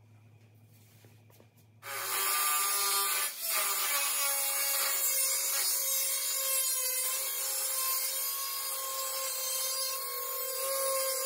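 A power tool starts up about two seconds in and cuts into the sheet metal of the old race-car tail, a steady whine over a harsh cutting hiss with one brief dip soon after it starts. This is the slit being cut down the centerline of the tail.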